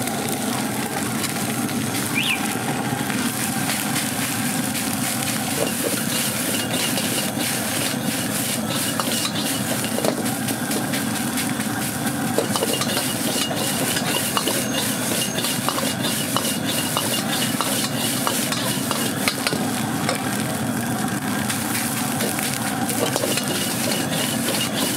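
Fried rice sizzling in a wok over a gas burner while a metal ladle scrapes and clinks against the wok in quick, irregular strokes as it is stir-fried.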